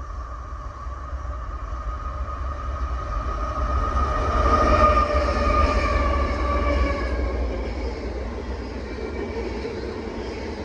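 CSX diesel locomotive passing close by, its engine rumbling with a steady whine that is loudest about five seconds in and drops slightly in pitch as it goes by. It is followed by tank cars rolling past on the rails.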